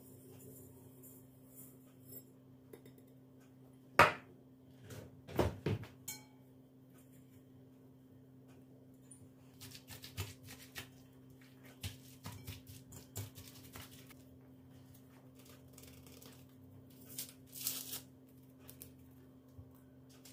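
Quiet household handling sounds: scattered light knocks, clicks and rustles, with a sharp knock about four seconds in and a brief rustle near the end, over a steady low hum.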